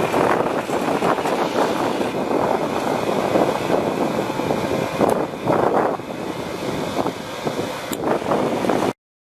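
John Deere 4030 tractor engine running steadily, with the sound cutting off abruptly near the end.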